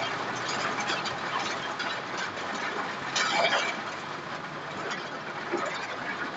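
Steady rush of heavy rain and floodwater noise heard from inside a car wading through a flooded street, with a louder splashing burst about three seconds in.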